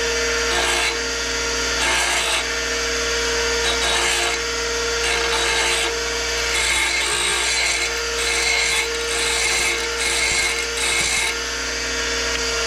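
Craftsman 6-inch bench grinder running with a steady hum while the cut end of a short threaded rod is touched to the wheel again and again, each touch a short burst of grinding hiss. The sharp cut ends of the rod are being ground down so a nut will start on the threads.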